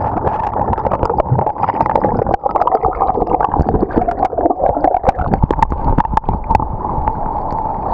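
Muffled underwater rush of churning water and bubbles around an action camera plunged into the sea, with many sharp bubble crackles. The crackling thins out in the last second or so.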